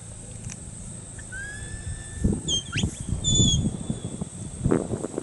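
A series of short whistle commands, sliding and bending in pitch, of the kind a shepherd gives a herding sheepdog. From about two seconds in they sit over uneven low rumbling noise.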